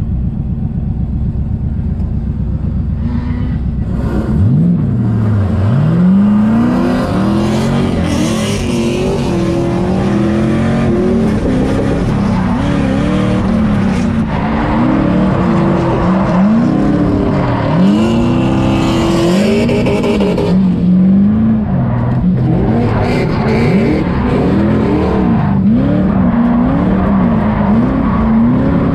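The LM7 5.3-litre LS V8 in a Mazda FC RX-7, heard from inside the cabin. It runs steadily for about four seconds, then its revs climb and fall again and again as the car drifts, with tyres squealing at times.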